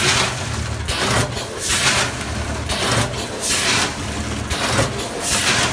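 Multihead weigher vertical packing machine running through its bagging cycle: a rushing, rattling noise comes about once a second, over a low motor hum that stops and starts with each cycle.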